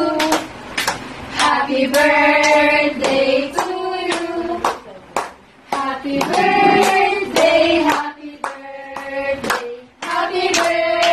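A group of women and children singing a birthday song together while clapping in time, about two claps a second.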